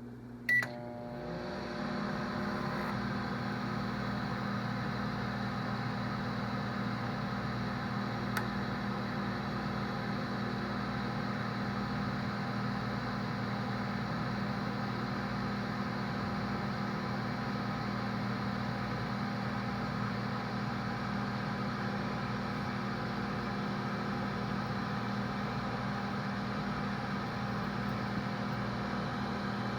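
A microwave oven beeps once about half a second in and starts heating, then runs with a steady hum and fan whir.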